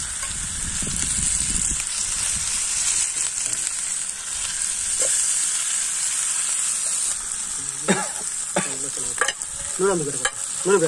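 Marinated chicken pieces sizzling steadily in oil on a flat metal pan over a wood fire, with tongs moving them around. A few brief voice sounds cut in near the end.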